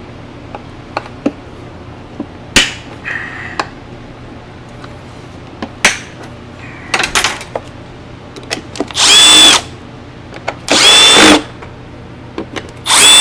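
Cordless power driver spinning loose the engine's motor-mount bolts on a backpack blower in three short runs of about half a second each near the end, each with a steady high whine. Before them there are small clicks and taps from the tool and parts being handled.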